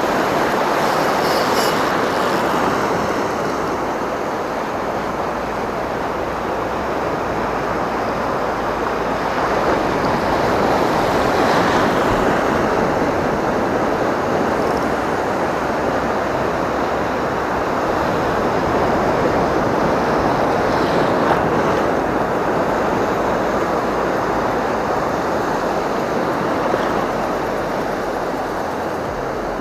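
Continuous rushing of waves and wind, swelling and easing every several seconds.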